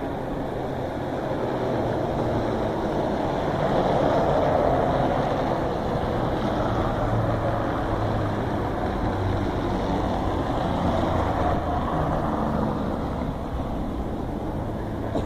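Long rolling rumble of thunder, swelling to its loudest about four seconds in and then slowly easing off.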